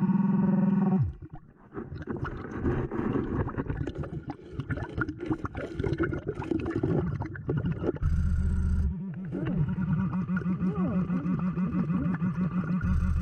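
Underwater sound of a diver breathing on a Blu3 Nemo hookah dive system: bubbles gurgling and crackling from the regulator, with a steady low hum that stops about a second in and comes back, pulsing, for the last few seconds.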